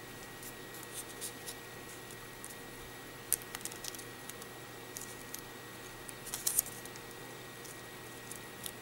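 Folded paper strips rustling and crinkling faintly as fingers fold and crease them, with a few short crackles about three and a half and six and a half seconds in, over a low steady hiss.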